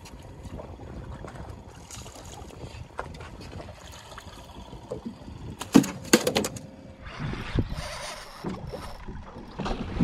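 Water slapping and gurgling against a flats boat's hull. About six seconds in comes a quick run of sharp knocks.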